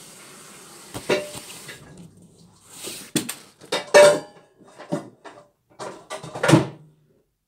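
Metal tripod being handled, clanking and clattering in a string of sharp knocks over several seconds, loudest about halfway through and again near the end.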